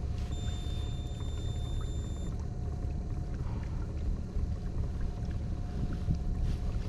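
Boat's motor running with a steady low rumble and a faint steady hum. A high, steady electronic tone sounds for about two seconds near the start.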